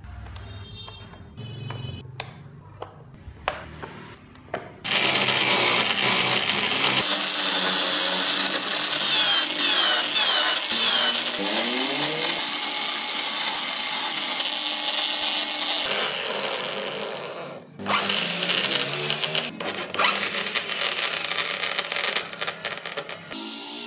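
Corded electric drill used as a makeshift wood lathe, spinning a wooden toy wheel while a hand chisel cuts into it: a loud, steady whir with the rough scraping of the tool on the wood. It starts abruptly after a few seconds of light taps and clicks of wooden parts being handled, stops briefly about three-quarters of the way through, then runs again.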